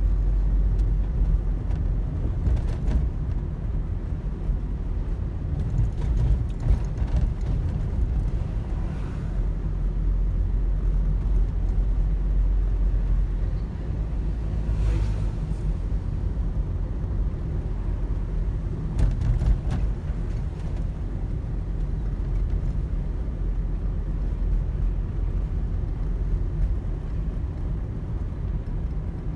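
Car heard from inside the cabin while driving at low speed: a steady low rumble of engine and road noise, with a few faint clicks.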